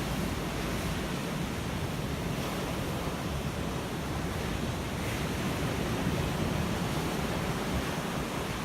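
Ocean surf washing steadily onto a shore, a continuous rushing noise that swells and eases gently.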